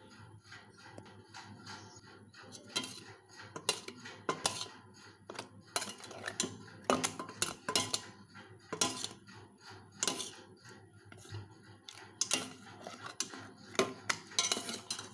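Steel spoon clinking and scraping against a stainless steel saucepan as fried chiroti are turned in sugar syrup and lifted out. Repeated sharp clinks at irregular intervals, starting about two and a half seconds in.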